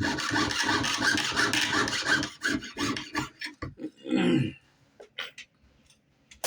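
Rapid rasping back-and-forth strokes of a hand tool cutting or shaping a small metal jewelry piece, slowing to separate strokes and stopping about three seconds in, then a single bump and a few light clicks.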